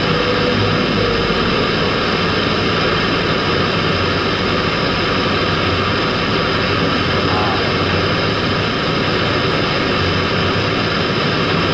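Semi-truck's engine running as the truck creeps slowly along, with highway traffic going by: an even rumble and hiss that never lets up.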